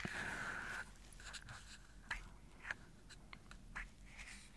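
Long fingernails scratching and tapping on a small brass compass case close to the microphone: a short scratchy rub at the start, then faint, irregular light clicks and taps.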